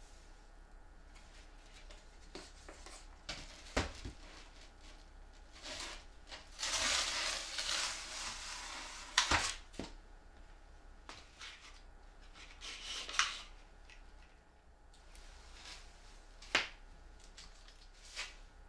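Handling noises of a plywood saw guide being turned over and laid on foam board: a few light knocks and clicks, and a rubbing, sliding sound lasting a couple of seconds in the middle.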